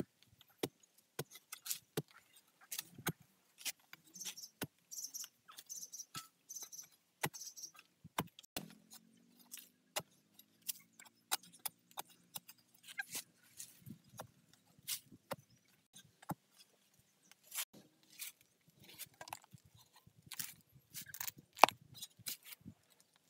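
Digging bamboo shoots out of soil with a metal-tipped digging pole: irregular strikes and scrapes of the blade in earth and stones, with dry bamboo leaves crackling. Midway a low steady hum with a slightly falling pitch runs for about four seconds.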